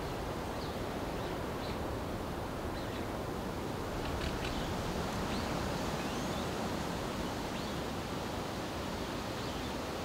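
Steady wind rushing through trees, with faint, short, high bird chirps scattered throughout.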